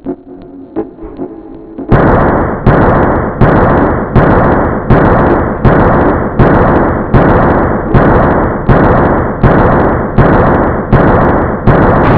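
Edited remix audio: about two seconds of faint tones with light clicks, then a loud, harsh, distorted sample that starts abruptly and repeats in a steady beat, a little more than once a second.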